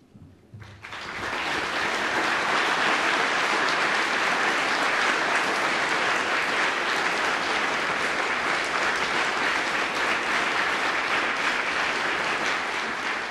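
Audience applauding, swelling in about a second in and then holding steady.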